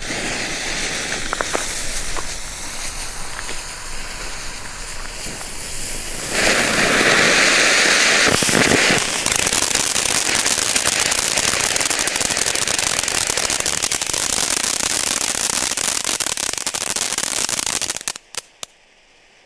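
Two small category F1 youth firework fountains spraying sparks with a continuous hissing crackle, louder for a few seconds from about six seconds in. Both cut off abruptly near the end.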